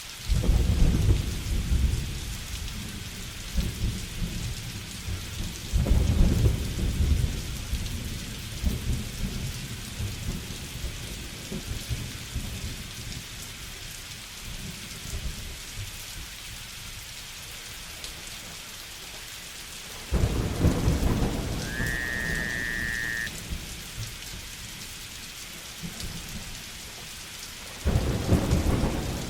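Steady heavy rain with four thunderclaps, each starting suddenly and rumbling low for a few seconds. A short high whistling call sounds twice over the rain, about two-thirds of the way through and again at the end.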